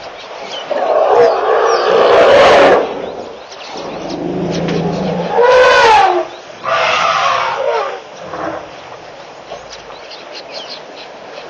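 African elephants in a herd calling loudly. A long harsh roar comes about a second in, then a low rumble, then two shorter trumpeting calls that rise and fall in pitch around the middle.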